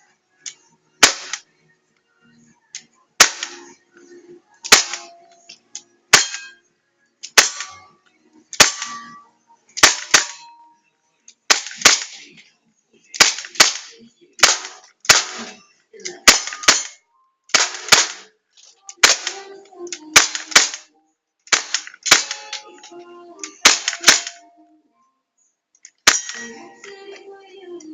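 CO2-powered replica HK MP5 firing single shots, about twenty in all, roughly one every second and a half. Each shot is a sharp crack followed by a brief noisy tail.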